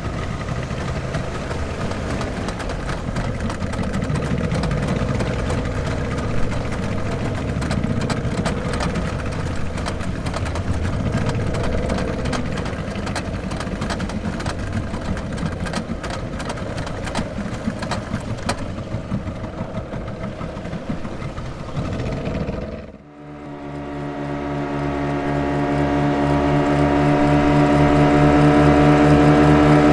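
Motorboat engine running with a rushing, uneven noise; about 23 seconds in it cuts abruptly to a different, steadier engine sound with a strong even hum that grows louder toward the end.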